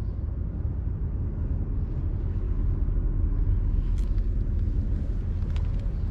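Wind buffeting the microphone on an open seaside breakwater: a steady, fluttering low rumble, with a couple of faint clicks about four and five and a half seconds in.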